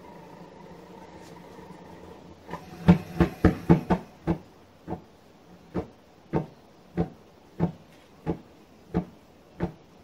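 Hand-held spark igniter clicking over and over at the propane burner of a coffee-can furnace, trying to light it: a quick run of clicks about two and a half seconds in, then about one and a half clicks a second.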